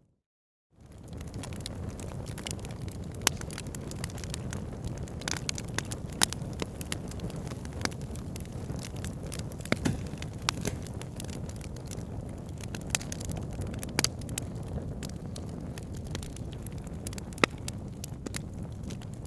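Fire in a fireplace burning with a steady low rush and frequent sharp crackles and a few louder pops. The sound cuts out briefly at the very start and fades back in.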